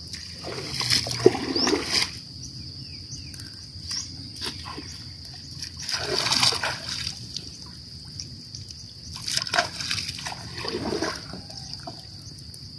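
Pond water splashing and dripping as a gill net is hauled by hand out of the water into a wooden boat. The splashing comes in several bursts: about a second in, around the middle, and again near the end.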